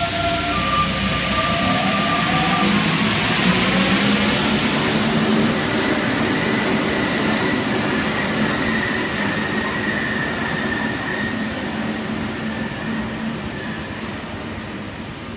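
Paris Métro MP 89 CC rubber-tyred train pulling out of the station, its traction motors whining and rising in pitch as it accelerates. The rolling noise fades as the train draws away into the tunnel.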